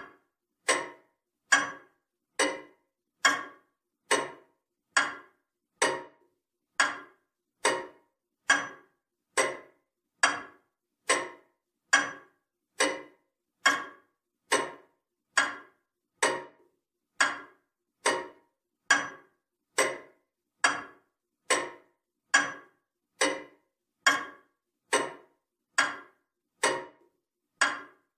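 Comtoise clock ticking steadily at about 70 beats a minute, each tick a sharp click that dies away quickly.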